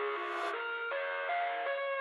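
Background music: an instrumental melody of clear, held notes that change a few times a second, with a brief hiss near the start.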